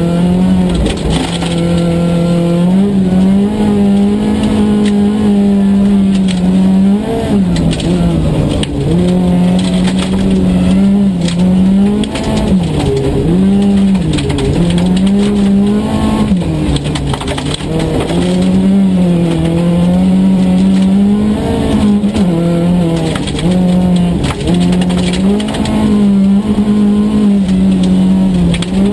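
Volvo 242 Group H rally car's engine heard from inside the cabin, held at high revs, its pitch repeatedly dipping and climbing again as the driver lifts off and changes gear. Steady gravel and road noise from the car on a loose surface runs underneath.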